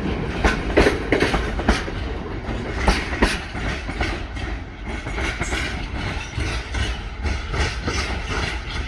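Wagons of a freight cement train rolling past, their wheels clicking over rail joints in repeated pairs and clusters over a low steady rumble; the clicks thin out after about four seconds.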